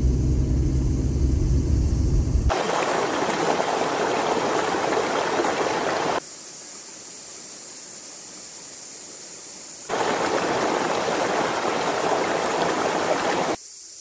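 A car's low engine and road rumble heard from inside the cabin, cut sharply to the rush of a forest stream or waterfall. The water cuts in and out abruptly twice, with quieter stretches in between where a steady high hiss remains.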